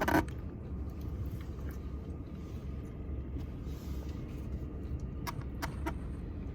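Steady low rumble of a vehicle cabin, with a short knock right at the start and three light clicks about five to six seconds in.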